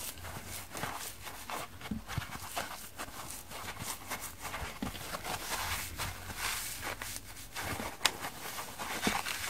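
Dry kitchen scrub sponges, foam with a scouring-pad layer, squeezed and crushed in the hands: a dense run of crackling and rustling, with one sharp click about eight seconds in.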